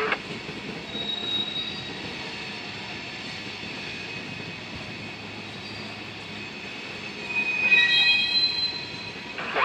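Freight train's hopper cars rolling past with a steady rumble of wheels on rail. A thin, high wheel squeal comes in about a second in, and a louder squeal of several high tones rises near the end.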